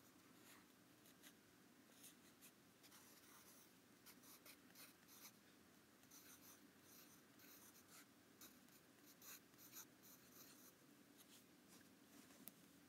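Faint scratching of a graphite pencil on lined notebook paper as words and a small doodle are written, in many short strokes that stop a little before the end.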